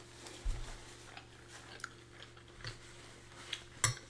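A person chewing food close to the microphone, with scattered small clicks, a low knock about half a second in and a sharp click near the end.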